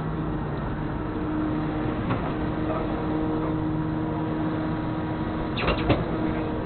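Flatbed tow truck's engine running steadily with a low hum, with a quick cluster of sharp clicks about five and a half seconds in.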